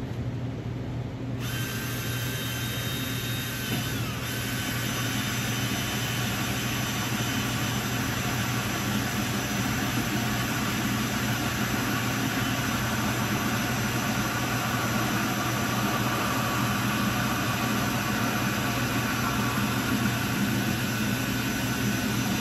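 Cordless drill with a hole saw cutting through the plastic wall of a storage tub, running steadily. About a second in, a hiss from the cut joins the motor's whine, and a few seconds later the pitch drops slightly as the saw bites.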